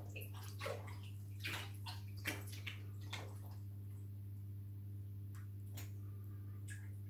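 Aquarium water splashing in short, irregular bursts, clustered in the first three seconds with a few more near the end, over the steady low hum of the tank's running equipment.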